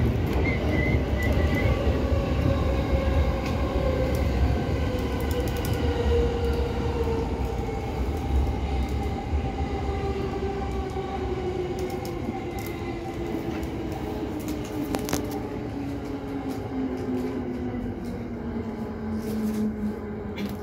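Electric train slowing for a station, heard from inside the car: a motor whine falls steadily in pitch over the rumble of wheels on rail, the whole sound easing off as the train decelerates.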